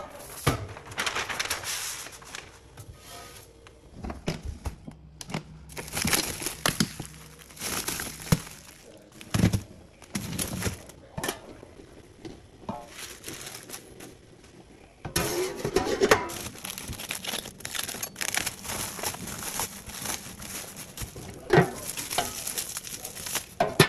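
Packaging crinkling and rustling as it is handled, in irregular bursts, with a steadier hiss underneath from a little past halfway.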